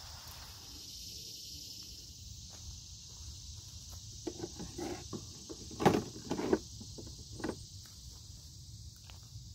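Steady high-pitched insect chorus, with a cluster of short knocks, clicks and rustles from items being handled in a garden wagon's tool tray, the loudest about six seconds in.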